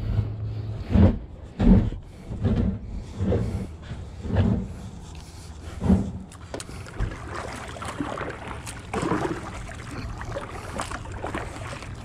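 Kayak being moved on the water: low thuds against the hull about once a second for the first six seconds, then a softer swish of water with small splashes and paddle ticks.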